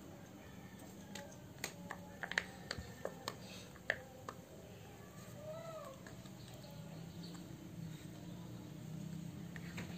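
A newborn pig-tailed macaque gives one short rising-and-falling coo about halfway through. Before it comes a run of sharp clicks and taps.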